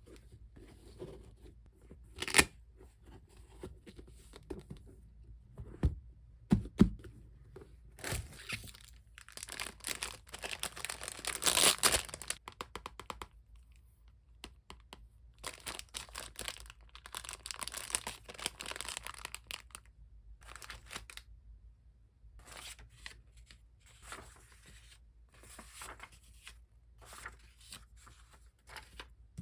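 Unboxing of a parcel: a few sharp taps and knocks, then packaging tearing and crinkling, loudest about twelve seconds in, and again for several seconds later on, followed by scattered light clicks as items are handled.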